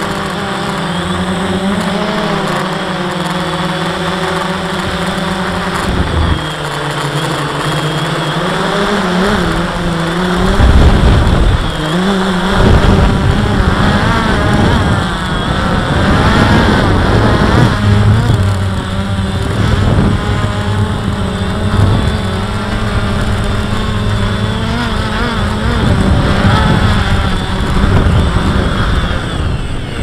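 DJI Phantom quadcopter's electric motors and propellers whirring, heard from the drone's own camera, the pitch wavering up and down as the throttle changes while it descends to land. Gusts of wind buffet the microphone about a third of the way through.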